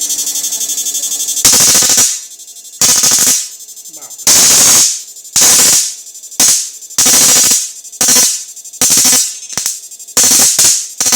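Homemade 28,000 W IGBT electric fish-shocking machine at raised output. It gives a steady high buzz for about the first second and a half, then a string of loud, harsh bursts about once a second as it fires into the water.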